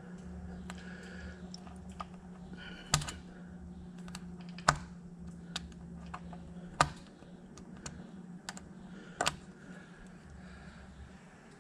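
Sharp metallic clicks and knocks as a hand works at a band clamp on a truck's radiator hose: four loud ones a couple of seconds apart, with fainter ticks between. Under them runs a low steady hum that fades out about seven seconds in.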